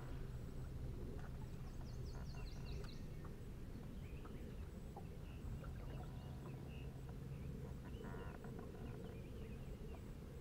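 Outdoor lakeside ambience: a low steady rumble with birds chirping over it, including a quick run of chirps about two seconds in, and a few small clicks.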